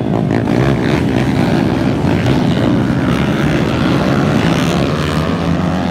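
A pack of racing dirt bikes passing close by, many engines revving over one another, loud and continuous.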